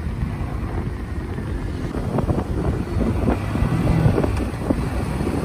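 Motorcycle running under way, with wind rumbling steadily on the rider's microphone.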